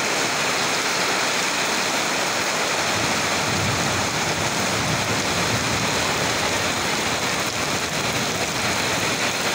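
Heavy rain pouring down steadily on wet ground, puddles and garden leaves: a dense, even hiss of falling water.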